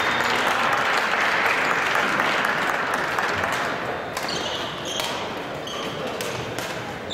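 Badminton hall noise: a dense wash of sound for the first four seconds or so, then scattered sharp taps and short high squeaks from shoes on the court floor and shuttles being struck.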